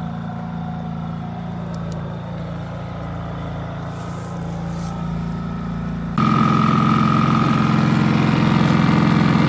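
Portable generator engine running steadily at a constant speed. About six seconds in the sound cuts abruptly to a noticeably louder generator running, with a higher whine over the engine hum.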